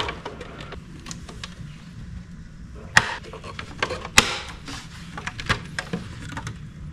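Clicks and knocks of hard plastic as a juicer's clear plastic cover is seated on its housing and the side locking clips are handled, the two loudest about three and four seconds in.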